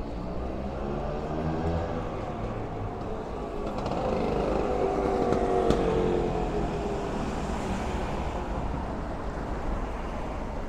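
Motor traffic passing on a city street: one vehicle passes close, loudest about halfway through, its engine note dropping in pitch as it moves away.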